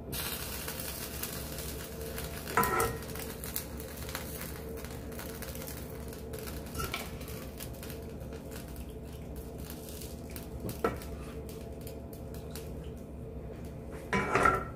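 Metal ladle clinking against a stainless steel pot while scooping sauce out and spreading it over macaroni in a glass baking dish: a few scattered knocks over a steady background hiss.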